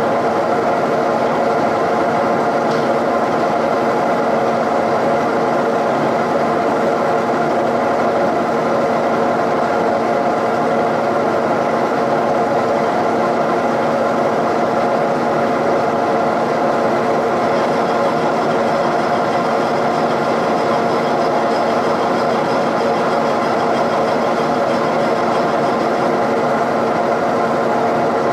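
Milling machine running steadily while a long boring bar cuts into a valve-port bowl of a Cummins 5.9 cast-iron cylinder head. A faint high-pitched ring joins in partway through and fades out near the end.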